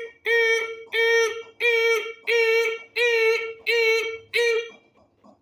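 A person's voice making a repeated beeping sound, like a machine's warning beeper: seven even beeps at one steady pitch, a little more than one a second.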